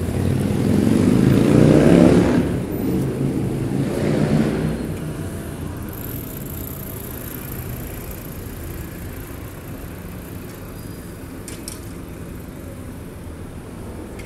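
Motor vehicles passing close by on a city street: a loud pass-by peaking about two seconds in, a second one about four seconds in, then steadier distant traffic.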